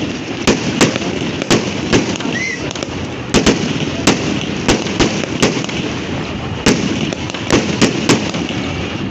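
Large bonfire burning, the wood crackling with irregular sharp pops, about two a second, over a steady rushing noise of the fire.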